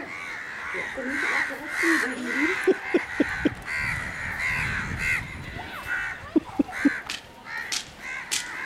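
Crows cawing over and over, several calls overlapping, with a few short low sounds in quick succession about three seconds in and again about six and a half seconds in.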